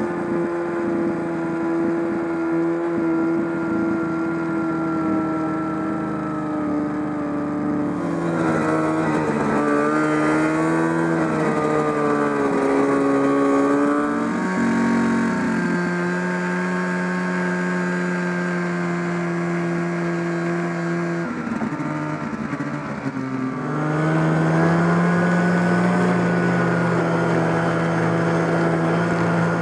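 1974 John Deere 300 snowmobile's two-stroke engine running under way. It holds a steady pitch, wavers and drops about a third of the way in, eases off briefly about three quarters through, then picks up again.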